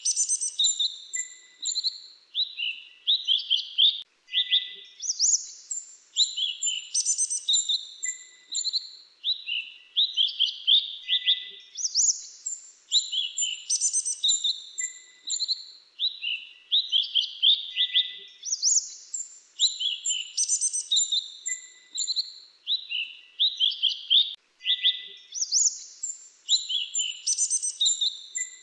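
A 'Mantenan Dagu Kelabu' songbird singing rapid high chirps and short trills in tight clusters. The same sequence of phrases repeats about every seven seconds, as in a looped recording.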